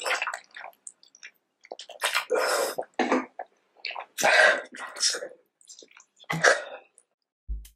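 Close-miked mouth sounds of a person eating spicy food: irregular wet bursts, with throat-clearing and coughs. A short low thump near the end.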